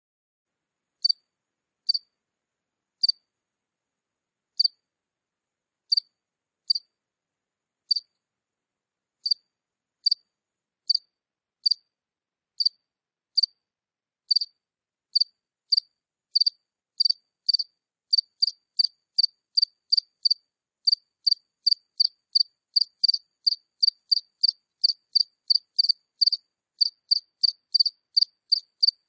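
A single cricket chirping close up, short high chirps on a silent background. They come sparsely at first, about one a second, then quicken to two or three a second in the second half.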